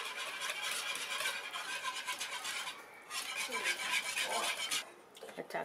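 Wire whisk scraping and swishing against the bottom of a frying pan as it whisks thick mole sauce into chicken broth, breaking up the paste. Two spells of quick strokes, with a short break about three seconds in; the whisking stops near the end.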